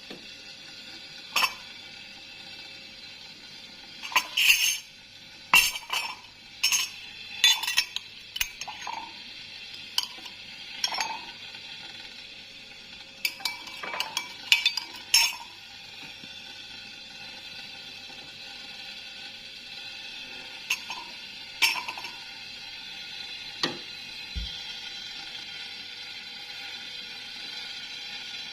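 Kitchen utensils and dishes clinking and knocking in scattered handling, such as a spoon against a glass or bowl, over a steady background hiss.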